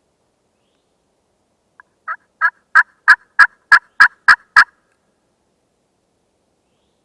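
Wild turkey calling a run of about ten evenly spaced yelps, roughly three a second, that build in loudness and then stop.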